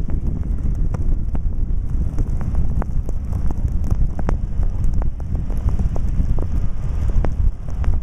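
Vehicle driving along a snow-covered road: a steady low rumble with frequent irregular clicks and crackles over it.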